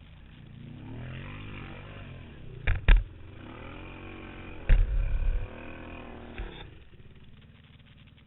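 ATV engine revved hard, its pitch rising and falling over several seconds as the machine is driven under load, with two loud heavy knocks about a third and halfway through; the engine falls back to a low idle-level near the end.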